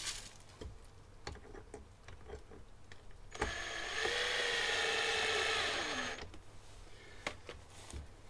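Cordless electric screwdriver running for about three seconds, driving in a bolt of a plastic radiator guard, its whine sagging in pitch as it slows and stops. Light clicks and knocks of handling before and after.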